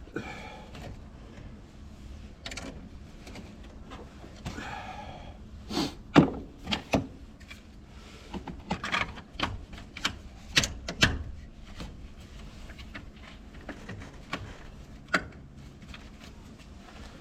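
Irregular sharp knocks and clicks of hand tools and hard parts being handled during a car battery replacement. They come in a cluster from about six to eleven seconds in, with one more near the end.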